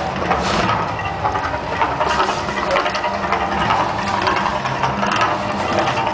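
Gas fire jets of the Mirage volcano show burning with a steady rushing hiss over a deep rumble, swelling now and then as the flames flare.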